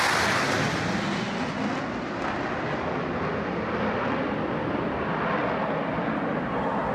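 Jet noise from a Blue Angels F/A-18 Hornet on a low pass: a loud rushing noise that peaks at the start, then holds and slowly eases as the jet moves off.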